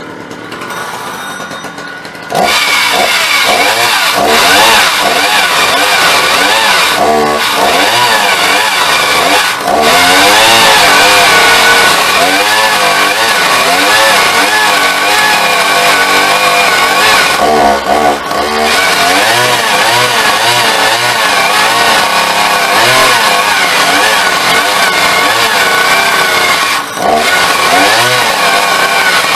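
Two-stroke petrol chainsaw idling, then about two seconds in opened up to full throttle and cutting through a log. Its pitch wavers up and down as it cuts, dipping briefly a few times.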